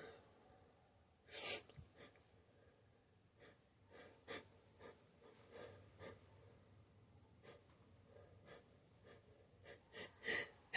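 A person's quiet breaths and sniffs during a sneezing fit, with a short sharp burst about a second and a half in and several quick inhales near the end.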